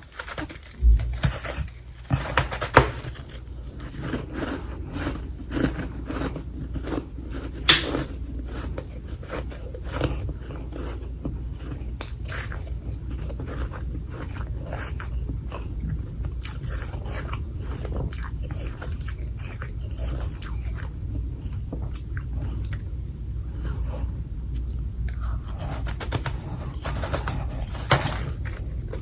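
Close-up chewing and crunching of humidifier freezer frost chunks: a long run of sharp, crisp crunches, thickest near the start and again near the end, over a steady low rumble.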